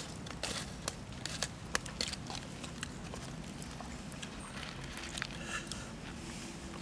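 Scattered sharp clicks and small knocks from hands working at a charcoal fire, stirring the embers, with the loudest clicks at the start and around a second and a half in. A faint steady low hum runs underneath.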